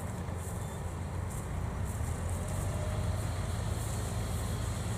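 Engine of a small tracked rice carrier loaded with rice sacks, running with a steady low hum as it crawls across the field, growing slightly louder toward the end.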